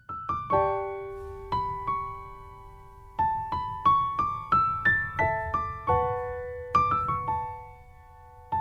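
Background piano music: a slow melody of single struck notes that ring and fade, with pauses between phrases.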